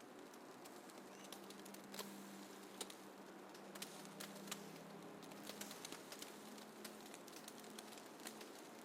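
Faint snowfall ambience: a soft steady hiss scattered with many light, irregular ticks and crackles, like fine snow pattering.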